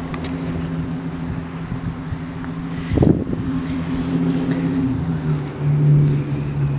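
An engine running steadily with a low hum, its pitch stepping down slightly about five seconds in, with wind on the microphone and a short swooping sound about three seconds in.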